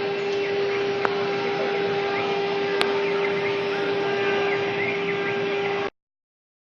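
CNC router running as it machines two-colour board: a steady whine from the spindle over a rushing cutting noise, with two sharp clicks. The sound cuts off abruptly about six seconds in.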